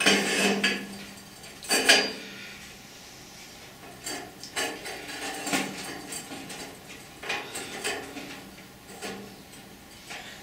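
Square steel tubing clanking and scraping against more tube and a steel mesh-topped table as the pieces are handled and fitted into a frame. Two sharp, ringing clanks come near the start, then lighter knocks and scrapes.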